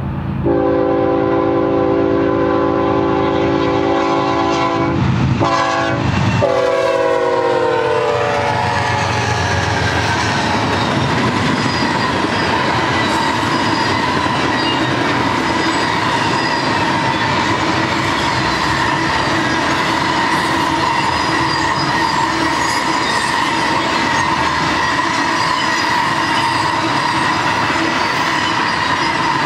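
BNSF GE ES44C4 locomotive's air horn sounding a held chord, breaking off briefly, then sliding down in pitch as the locomotives pass. After that the double-stack and trailer freight cars roll by with a steady rumble and wheel clatter on the rails, a faint steady high ringing tone over it.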